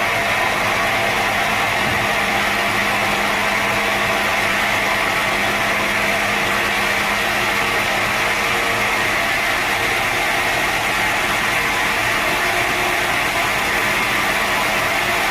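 Sawmill saw running steadily: a constant loud hiss with a faint hum underneath.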